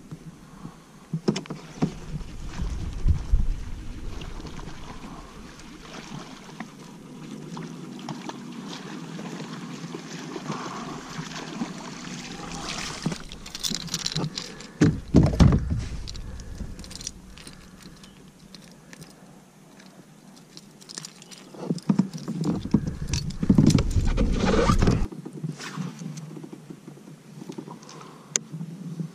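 Handling noise on a fishing kayak: water sloshing by the hull, scattered knocks and clicks of hands and gear on the boat, and three loud spells of deep rumble about two to four seconds in, around fifteen seconds in, and from about twenty-two to twenty-five seconds in.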